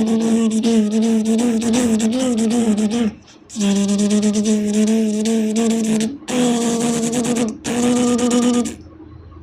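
A person imitating a housefly's buzz with the voice: a steady nasal hum with a slight waver, held in four long stretches broken by short breaths.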